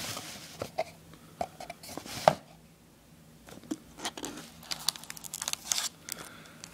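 Packaging being handled during an unboxing: rustling and crinkling with scattered clicks and light knocks, one sharp knock about two seconds in, then a quieter stretch before more rapid small clicks.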